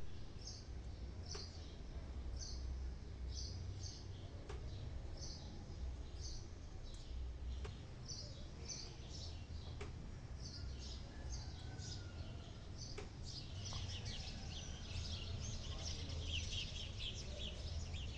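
Faint birds chirping: short high chirps about once a second, thickening into busier chatter over the last few seconds, over a low steady rumble with a few faint clicks.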